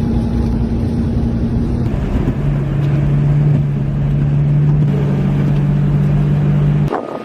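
Engine running steadily at a constant pitch, then a lower, steady engine drone after a cut about two seconds in, with a low rumble under both. The sound stops abruptly near the end.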